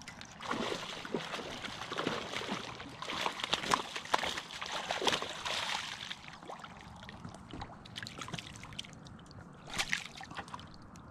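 Water sloshing and splashing in a run of irregular bursts, easing off after about six seconds, with one more brief splash near the end.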